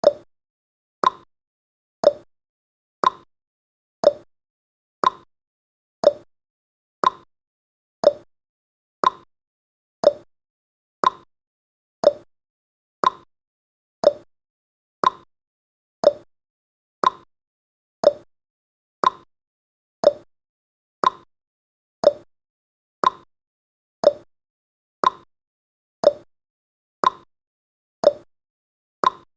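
Clock tick-tock sound effect of a countdown timer: one sharp tick every second, alternating between a higher and a lower tick.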